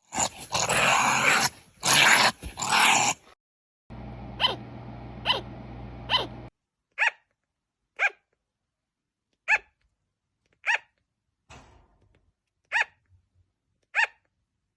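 A harsh growling roar for about three seconds, then a series of short, sharp yelping calls repeated roughly every second.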